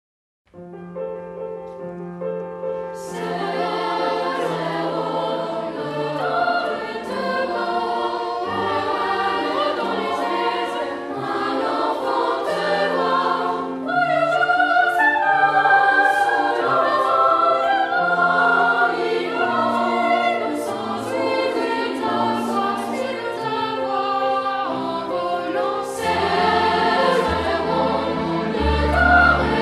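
Choral music: a choir singing over a bass accompaniment, starting about half a second in after silence.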